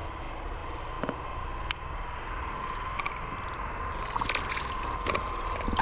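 Wet sloshing and slapping as northern pike are hauled out of an ice-fishing hole and flop on the wet ice, with a few short sharp clicks over a steady low rumble.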